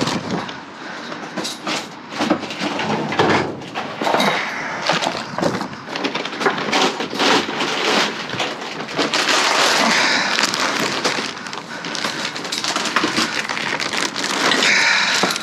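Rummaging through trash bags and packaged food in a dumpster: plastic and packaging crinkling and rustling, with irregular knocks and clunks as items are moved.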